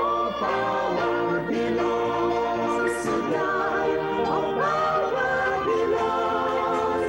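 Mixed gospel choir of men and women singing in harmony, holding long notes with vibrato and sliding between pitches.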